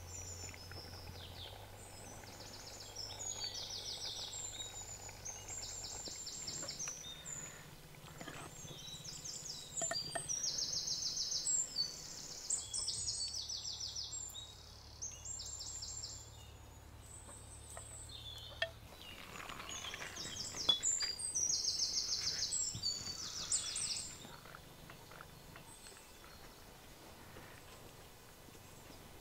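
Birds singing outdoors: short, high-pitched rapid trills repeated again and again, dying away near the end, over a faint low hum.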